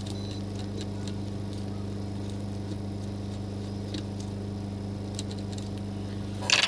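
A steady low hum from running workbench equipment, with faint scattered light ticks and a short louder rustle about six and a half seconds in.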